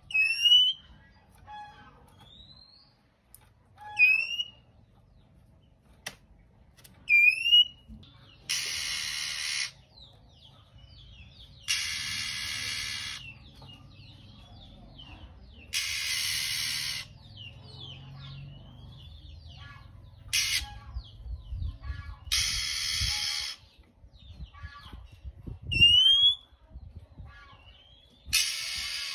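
Male oriental magpie-robin alternating short, loud rising whistles with long harsh hissing rasps of about a second each, the rasps repeated six times. Softer twittering is heard between the calls.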